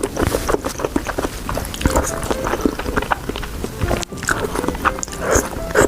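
Background music over close-up eating sounds: crunchy bites and chewing as a series of short crackly clicks.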